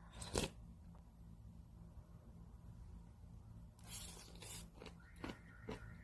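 Kitchen handling noises: a sharp knock about half a second in, a brief rustling, tearing-like noise about four seconds in, then a few light taps near the end.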